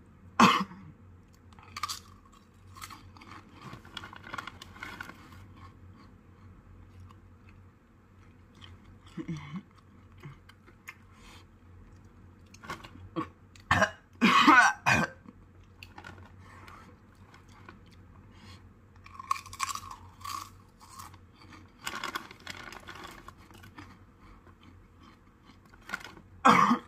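A person crunching and chewing Haunted Ghost Pepper tortilla chips, in scattered bites, with coughing from the chilli heat; the loudest cough comes about halfway through.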